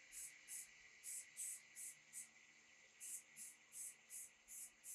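Aerosol spray-paint can hissing in short, quick bursts, about three a second, with a short pause about two seconds in.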